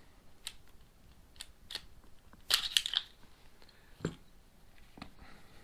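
Light clicks and knocks from handling a Glock 42 pistol and its parts. A quick run of several sharp clicks comes about two and a half seconds in, and a duller knock at about four seconds.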